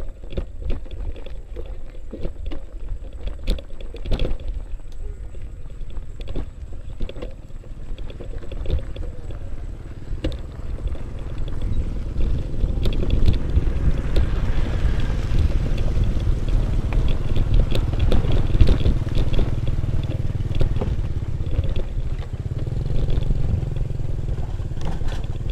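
Folding bike ridden over a rough dirt track: a low rumble of wind and ground noise, with many clicks and rattles from the bike jolting over bumps. The rumble grows louder about halfway through.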